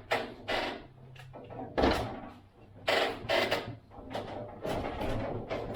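Irregular knocks and clatters, about ten of them, from hand work fitting PVC soffit boards into place.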